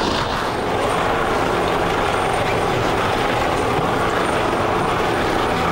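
Outboard engines of an RNLI inshore lifeboat running steadily under a constant rushing noise.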